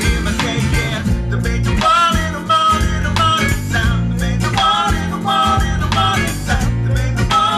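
Guitar-led song with a steady beat, a melody line coming in about two seconds in.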